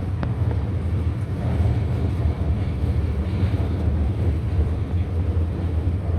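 Steady low rumble inside a Shanghai Metro Line 14 train carriage, with a faint click just after the start.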